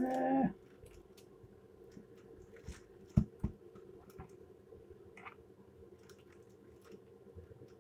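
A person eating with a fork: a short voiced 'mm' at the start, then scattered faint clicks and two sharp knocks about three seconds in, over a steady low hum.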